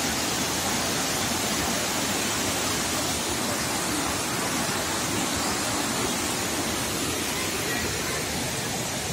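Waterfall and rocky mountain stream rushing steadily, running high after heavy rain.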